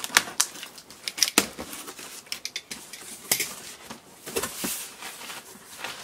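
Utility knife slicing the packing tape on a cardboard box, then the cardboard flaps being pulled open and the packing inside handled. It is an irregular run of sharp scrapes and clicks, with a brief soft rustle near the end.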